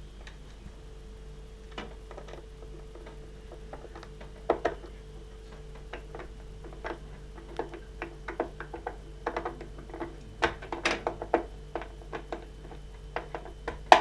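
Irregular small clicks, taps and knocks of parts and tools being handled, a few sharper knocks among them, over a steady low hum.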